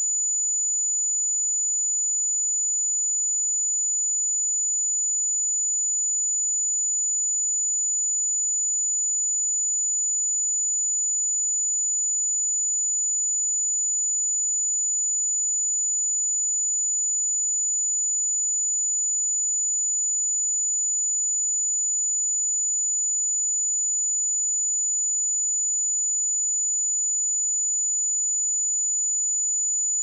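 A pure 6961 Hz sine-wave test tone, one steady high-pitched whistle held without any change.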